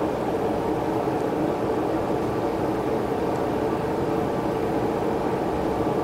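A small motor running with a steady hum and a faint steady whine above it.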